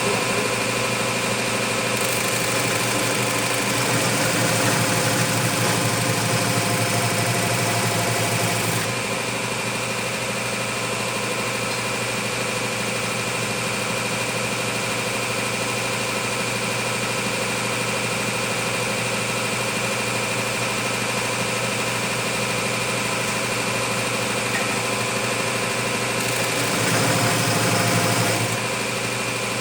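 An electric motor in a shop machine running steadily, with a constant high whine and a hum of several steady tones. It gets louder and rougher for several seconds a couple of seconds in, and again briefly near the end.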